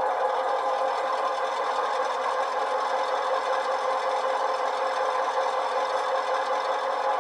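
Sound decoder's recorded diesel prime mover of a GP9, an EMD 567, running steadily through two small sugar-cube speakers in an HO-scale model locomotive, thin and without bass.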